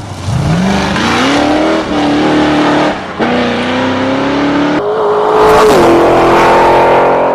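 A car engine revving up hard, its pitch climbing from low and stepping between levels: a drop about three seconds in, a climb again, a jump up near five seconds, then it settles and holds steady to the end.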